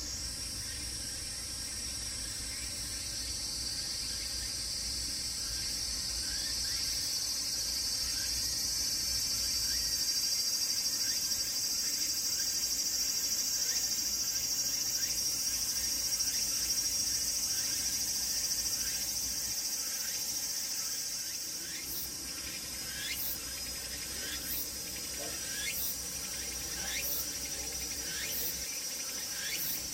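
Cicadas singing, among them tsukutsuku-boshi (Meimuna opalifera): a steady high drone that swells and then eases about two-thirds of the way through. After that comes a rhythmic phrase repeating about once a second.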